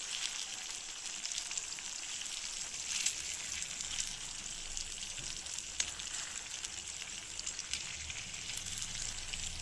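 Masala-coated chicken pieces shallow-frying in hot oil in a pan: a steady sizzle with frequent sharp crackles and pops.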